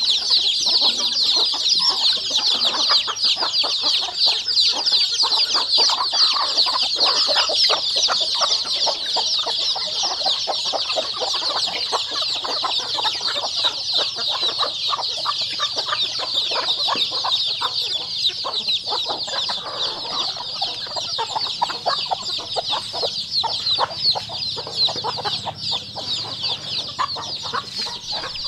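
Many young chicks peeping steadily, their high calls overlapping into a continuous chorus.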